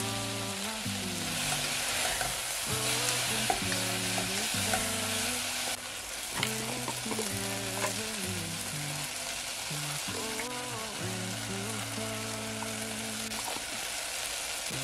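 Beef frying in a pot with ginger and garlic paste: a steady sizzle, stirred with a spoon that clicks against the pot a few times.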